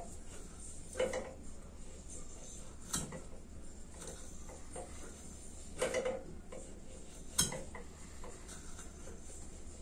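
About four short metallic clinks and knocks from tools and parts being handled at a motorcycle engine, over the steady low hum of a diesel air heater.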